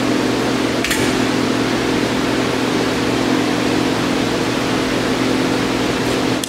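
Hardinge HLV-H toolroom lathe running with a steady hum from its motor and spindle drive, with a short click about a second in.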